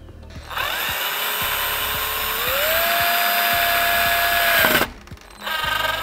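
Cordless drill driving a screw. The motor whine runs about four seconds, steps up in pitch once partway through as the motor speeds up, then cuts off. A short second run follows near the end.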